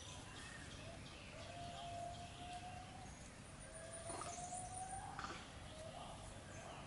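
Birds calling: two long whistled notes, each about a second and a half and rising slightly in pitch, with faint high chirps scattered around them.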